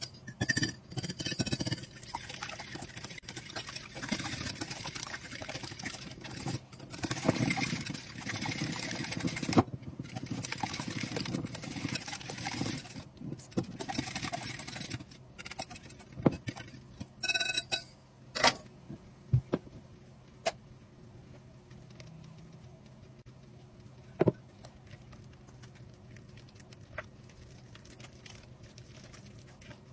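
Wire whisk beating eggs in a glass bowl: fast, continuous scraping and clinking for about the first fifteen seconds. After that the sound drops to quieter mixing with a few scattered clicks.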